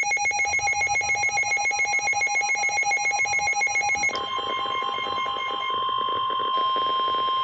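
Emergency alert tones. A rapidly pulsing electronic alarm trills for about four seconds, then gives way to a steady single alert tone, the NOAA Weather Radio warning alarm that comes before a severe thunderstorm warning is read.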